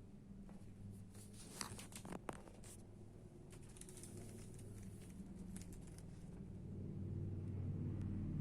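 Scattered light clicks and rustles, like small objects being handled, over a low hum that grows louder near the end.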